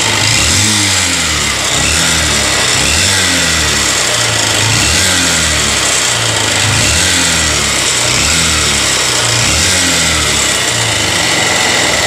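Honda CB Shine's single-cylinder four-stroke engine running, its speed rising and falling about once a second, with an abnormal ticking from inside the engine, a "tik tik tik tik" that persists even though the timing chain has been replaced and the tensioner is correctly set.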